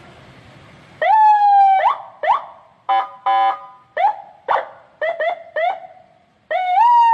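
Aftermarket electronic vehicle siren stepping through its tones: a rising whoop held for about a second, two short whoops, two steady horn-like blasts, a quick run of short rising chirps, and another rising whoop near the end.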